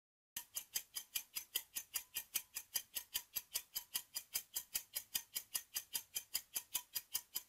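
Countdown-timer ticking sound effect: fast, even clock-like ticks, about six a second, starting just after the start.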